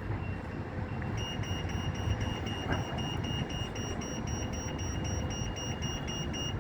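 Reversing alarm on site plant or a lorry beeping steadily, about three high beeps a second. It comes in much louder about a second in, over the low rumble of wind on the microphone.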